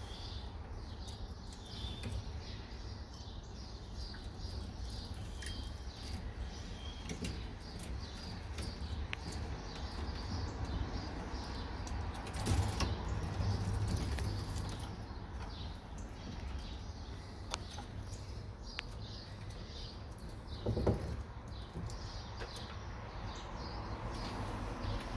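Squirrels scrambling over branches and wooden platforms: scattered light clicks and scratches of claws on wood, with a louder scuffle near the end, over a steady low rumble.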